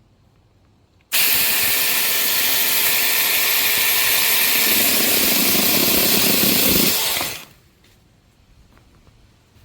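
A 6-inch cordless electric mini chainsaw starts abruptly about a second in and runs at full speed for about six seconds, its sound growing deeper in the last two seconds, then stops.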